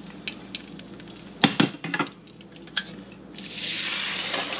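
Raw hand-cut potato fries and a metal deep-fryer basket being handled, with a few sharp knocks and clatters. About three seconds in, the basket goes into the hot oil and a steady frying sizzle starts and builds.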